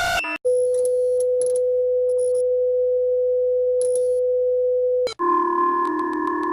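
Mock Emergency Alert System alarm tones. A siren cuts off, and a single steady electronic tone holds for nearly five seconds. It then stops abruptly, and a sustained chord of several synthesized tones begins, with a fast, regular ticking over it.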